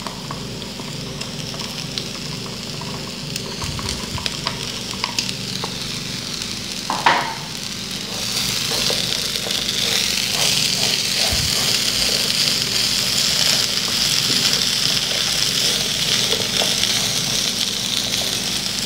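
Charque and diced potatoes sizzling in a frying pan while a silicone spatula stirs them, with light scrapes and clicks. The sizzle grows louder about eight seconds in.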